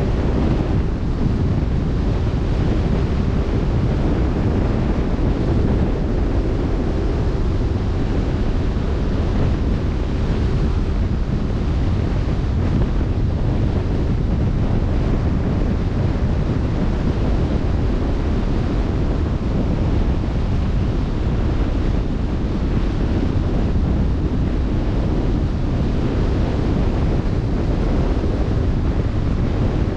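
Steady wind buffeting the microphone over the wash of open-sea waves, a continuous low rushing noise with no breaks.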